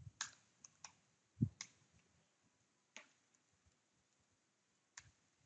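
Faint computer keyboard keystrokes: a few separate, unhurried clicks, with a duller thump about a second and a half in.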